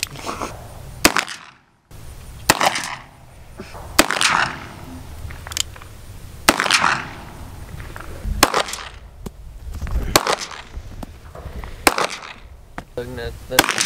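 Handgun shots fired one at a time, about nine in all, spaced every one and a half to two seconds, each crack followed by a short echo. They come from revolvers and a semi-automatic pistol.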